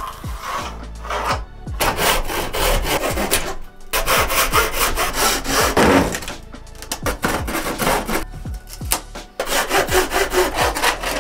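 Saw cutting through thin pine veneer plywood, in several runs of quick back-and-forth strokes broken by short pauses.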